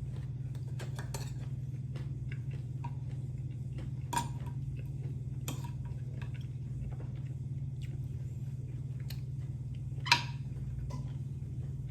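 Eating sounds at a meal: a few sharp clinks of cutlery against a dish, the loudest about ten seconds in, with fainter small clicks between, over a steady low hum.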